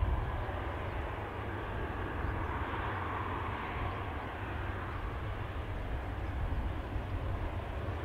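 Jet engines of a J-AIR Embraer regional jet running with a steady rushing noise as the airliner rolls along the runway, swelling slightly a few seconds in. Strong wind rumbles on the microphone underneath.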